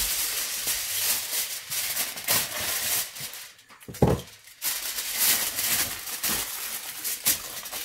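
Aluminium foil crinkling and rustling as a sheet is spread and pressed by hand into a cooker pan, with one sharp thump about four seconds in.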